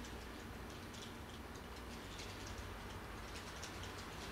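Wheels of N-gauge Ku5000 car-carrier wagons clicking lightly and irregularly over the model track as the freight train rolls past, with a low steady hum underneath.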